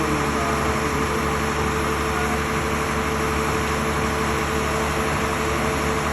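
Heavy diesel engines of a concrete pump and a ready-mix mixer truck running steadily: a constant drone with a steady whine over it.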